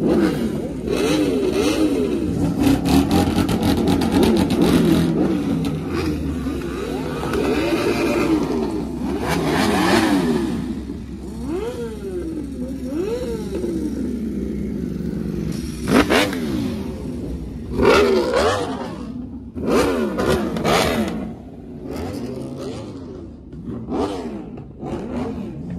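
Several sport motorcycles revving, engine pitch rising and falling in quick throttle blips, with a few sharper, louder revs in the second half.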